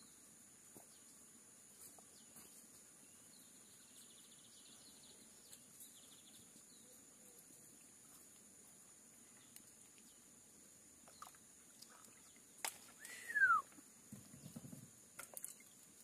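Quiet outdoor ambience with faint bird chirps and a steady high-pitched whine. Near the end, a sharp click, then one loud whistle gliding down in pitch, followed by a brief low rustle.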